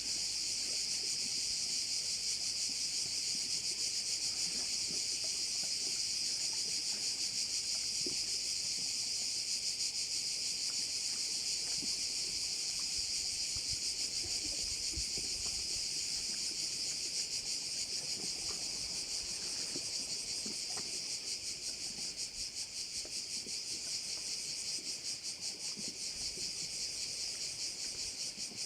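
Continuous dense chorus of singing insects (cvrčci), a steady, shrill, fast-pulsing chirring that wavers slightly in level near the end.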